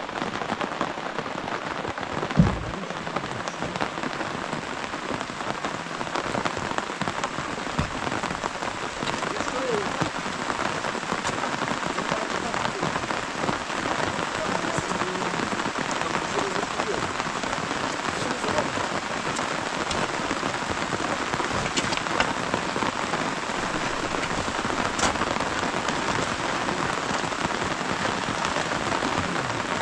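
Steady rain pattering down, with one short low thump about two seconds in.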